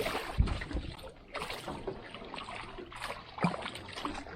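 Irregular knocks and water splashing around a small aluminium boat while a hooked fish is fought, with one heavier thump about half a second in.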